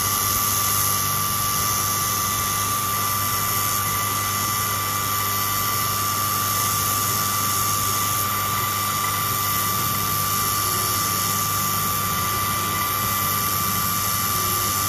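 Sculpfun S9 laser engraver with a 33 W module running an engraving job on plywood: a steady whir and airy hiss from its fans and air assist, with a thin high whine held at one pitch.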